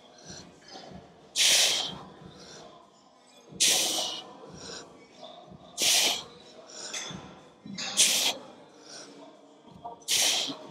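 A man breathing out forcefully with each rep of a seated dumbbell lateral raise: five sharp, airy breaths about two seconds apart, close on a clip-on microphone.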